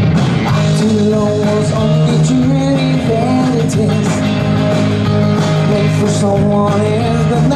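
Live rock-and-roll band playing, with a male voice singing the melody over electric guitar and a steady bass line.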